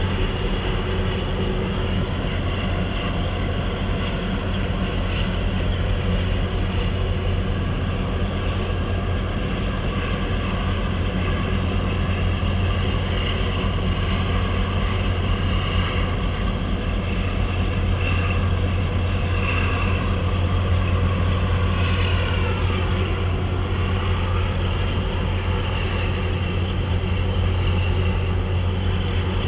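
Steady deep drone of marine diesel engines from a harbour tug working against a large container ship's hull: a strong low hum with even tones stacked above it. About two-thirds of the way through, a higher whine slides down in pitch.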